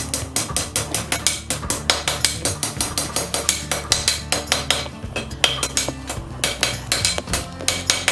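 Blacksmith's hammer striking a steel horseshoe on an anvil, straightening it out with quick, even blows, several a second.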